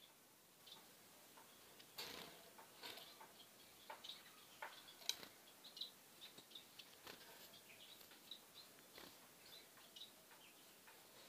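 Young white society finches giving faint, short chirps, with scattered sharp taps as the birds hop and flutter about their wire cage.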